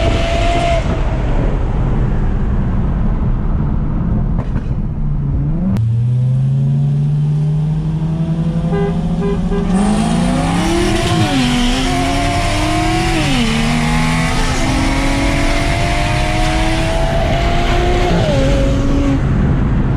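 Single-turbo BMW 335i's N54 3.0-litre inline-six heard from inside the cabin, pulling hard under full throttle. Its pitch climbs and drops at three upshifts, and the throttle is lifted near the end.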